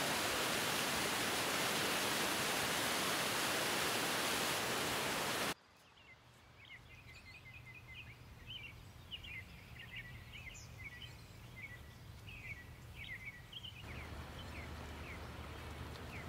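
Steady rush of a mountain cascade pouring over rocks, cut off abruptly about five and a half seconds in. Then it is quiet, with small birds chirping and singing and a faint low hum that grows stronger near the end.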